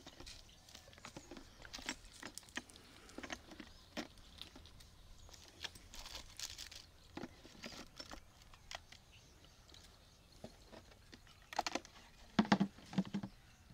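Small clicks, light clinks and rustles of glass vials and a syringe being handled as a vet prepares an injection. A few louder short sounds come near the end.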